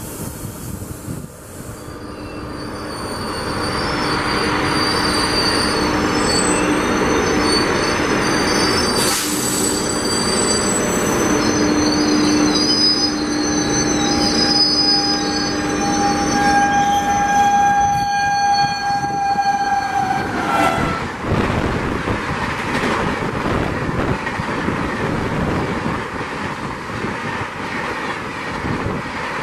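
Electric locomotive hauling a long passenger express approaching at speed and passing close by. A long, steady horn blast drops in pitch as the locomotive goes past about twenty seconds in. Then the coaches rush past with a rapid clatter of wheels over the rail joints.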